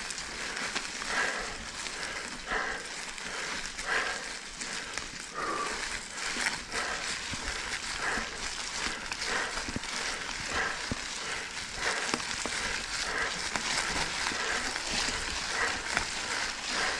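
Mountain bike tyres rolling over a trail covered in dry fallen leaves: a steady crackling crunch full of small clicks.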